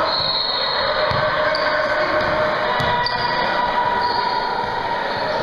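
A basketball being dribbled on a gym floor, a few thuds over a steady din of background noise that carries through the hall.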